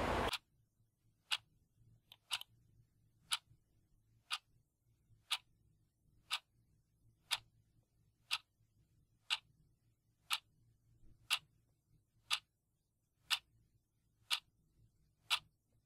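A clock ticking about once a second, sharp isolated ticks over near silence, with a quick double tick about two seconds in.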